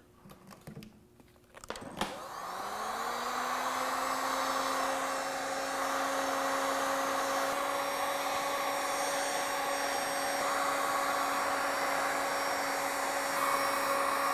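Handheld electric heat gun switched on about two seconds in, its fan motor spinning up with a rising whine and settling into a steady hum with rushing air as it heats shrink tubing on a wrench. The motor winds down at the very end as it is switched off.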